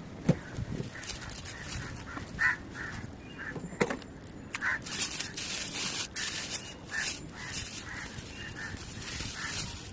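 Short bird calls repeated at uneven intervals, mixed with sharp clicks and brief bursts of rustling noise.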